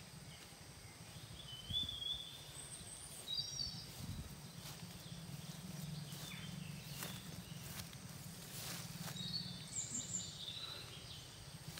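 Footsteps through grass as a man walks up carrying a bucket of rubber lumps, with short, high bird chirps scattered throughout and a steady low hum underneath.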